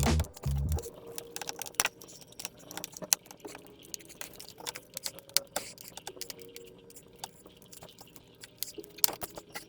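Irregular small metallic clicks and ticks of a makeshift tool working the tiny screws out of a MacBook unibody's bottom case.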